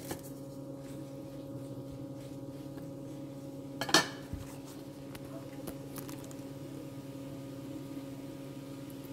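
A utensil clatters once against a nonstick frying pan of mushrooms cooking in butter, about four seconds in, with a few faint ticks later. A steady hum runs underneath.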